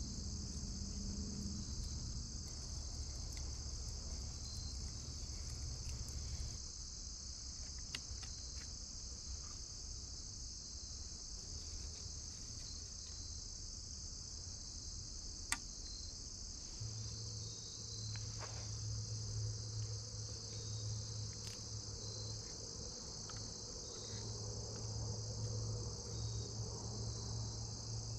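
Steady high-pitched chorus of insects, with a low hum underneath. There are a few faint clicks and one sharp click about halfway through.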